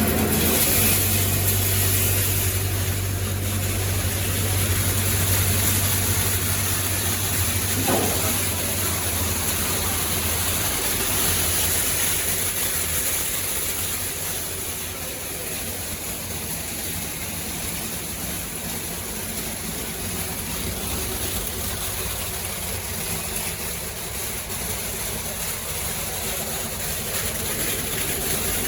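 Grain dryer machinery running: a steady mechanical hum with hiss from its fans and motors. The low hum is strong for about the first ten seconds and then eases.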